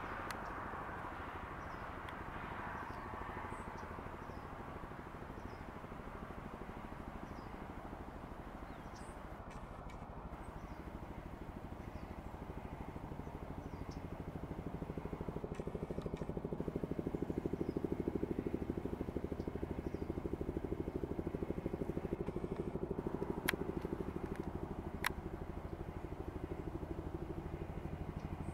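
Low, steady rumble of a motor vehicle's engine running nearby, growing louder about halfway through. Faint short bird chirps come in the first half, and two sharp clicks come near the end.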